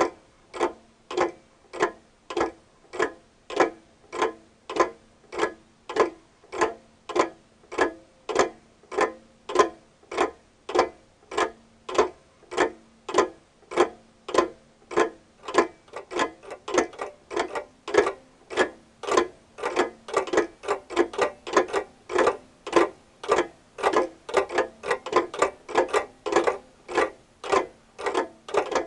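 Clock ticking steadily, about two ticks a second; from about sixteen seconds in, extra ticks fall between the beats so the ticking grows denser. A faint steady low hum lies underneath.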